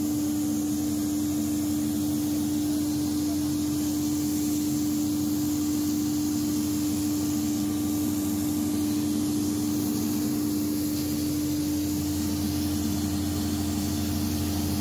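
Large natural-gas engine generator set running steadily under load, supplying about 300 kW to the grid: an even drone with one strong, unchanging hum tone.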